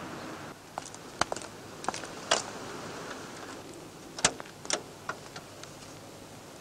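Irregular sharp clicks and pops over a low steady hiss: the crackle of an old film's optical soundtrack. A fading rushing noise dies away about half a second in.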